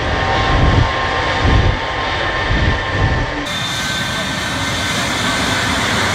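Shockwave jet truck's three jet engines running at full power down the runway: a loud, steady jet noise with a thin high whine over it.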